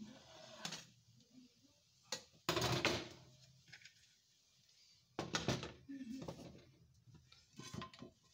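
Metal spoon and nonstick frying pan clattering and scraping: a handful of separate knocks, the loudest about two and a half seconds in and another cluster a little past halfway, as the spoon is worked under the edge of the pan-cooked base, set down on the steel gas stovetop, and the pan is lifted off the burner grate.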